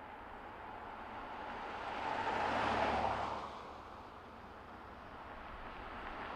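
A car driving past, its tyre and engine noise swelling to a peak about three seconds in and fading away, with another vehicle approaching near the end.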